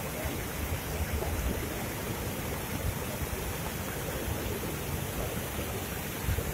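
Flooded river in spate, fast brown water rushing and churning through rapids in a steady, unbroken rush.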